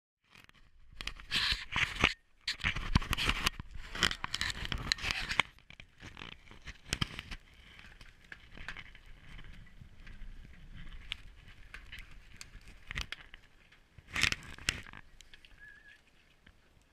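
Scraping and rustling handling noise from a worn camera as its wearer moves, with scattered sharp clicks and knocks. It is heaviest for the first five seconds, quieter after, with another short burst about fourteen seconds in.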